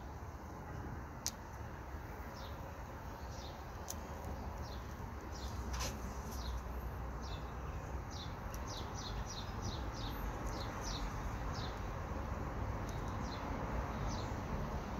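A small bird chirping repeatedly: short, falling chirps, coming in a quick run about two-thirds of the way through. A few sharp clicks sound over a steady low background hum.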